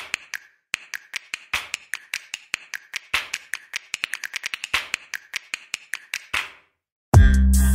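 Rapid, irregular sharp clicks and ticks from a countdown intro's sound effect, several a second. They stop, and after a brief gap loud electronic music with a heavy bass starts near the end.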